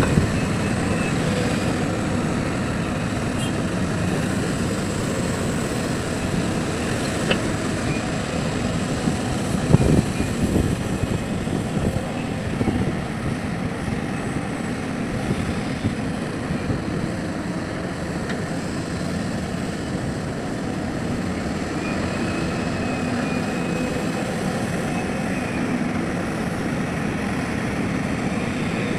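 Diesel engine of a hydraulic excavator running steadily under working load, with a sharp knock about seven seconds in and a louder thud about ten seconds in.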